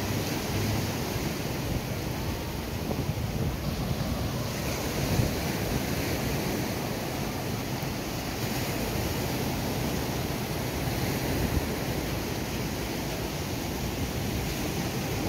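Surf washing onto the beach, with wind buffeting the microphone: a steady rushing noise with a rough low rumble.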